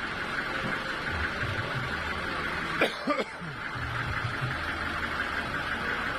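Sawmill machinery running steadily, an even mechanical noise with a low pulsing underneath. A person makes a brief vocal sound, such as a cough, about three seconds in.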